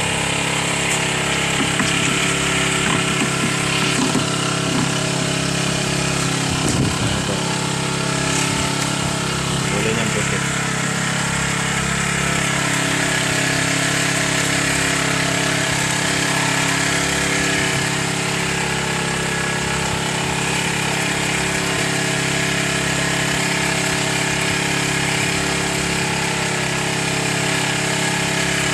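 A small engine running steadily, an even drone with a constant pitched hum that does not rise or fall.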